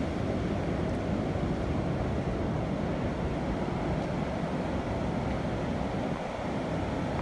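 Ocean surf churning and foaming, with wind buffeting the microphone: a steady rushing with no single wave break standing out.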